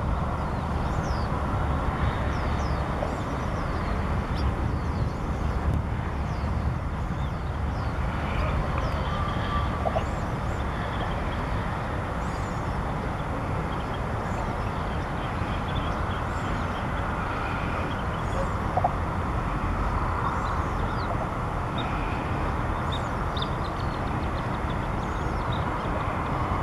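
Steady low background rumble, with faint, thin, high chirps of small birds scattered through it.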